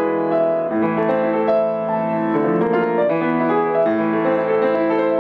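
Grand piano played solo: a continuous stream of overlapping notes over held lower notes.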